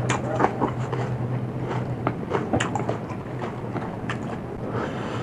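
Close-miked chewing and crunching of food: irregular crisp crunches, fewer toward the end, over a steady low hum.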